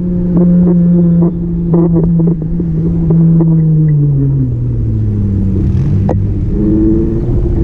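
A motor vehicle engine running, its pitch dropping about four seconds in as it slows, then rising again near the end. A few sharp clicks sound around two seconds in.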